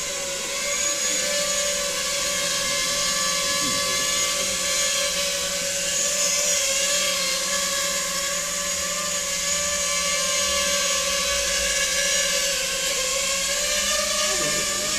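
Small home-built quadcopter drone hovering low, its motors and propellers giving a steady whining buzz that holds nearly one pitch.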